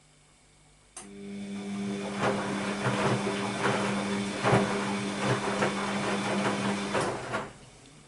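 Bosch WAB28220 front-loading washing machine turning its drum in a delicates wash: a steady motor hum, with wet laundry and water sloshing and thudding irregularly inside the drum. It starts suddenly about a second in and stops near the end.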